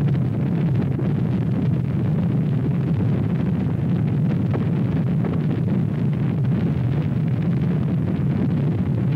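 Space Shuttle rocket engines at liftoff: a loud, steady, deep rumble with a hiss above it.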